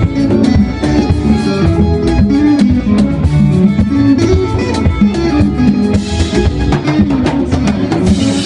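Live band playing an instrumental passage: electric guitar lines over a drum kit, loud and steady.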